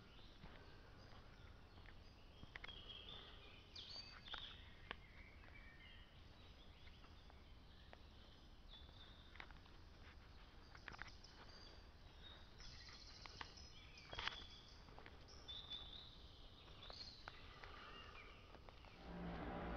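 Faint woodland ambience: scattered short bird chirps and light clicks over low background noise. Music comes in just before the end.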